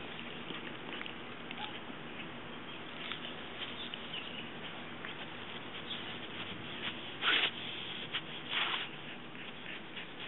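Siberian Husky puppy tearing and chewing grass: scattered small crunches and clicks over a steady hiss, with two louder crunches in the last third.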